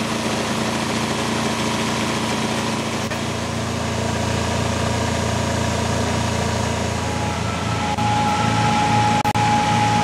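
Engine-driven industrial vacuum unit for oil spill recovery running steadily, with a low engine note under a steady whine. The sound briefly cuts out a little after nine seconds.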